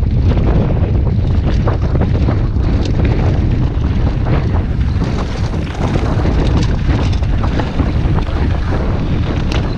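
Wind buffeting the microphone of a camera on a mountain bike riding fast downhill, a loud steady rumble, with frequent small knocks and clatter from the tyres running over a gravel track.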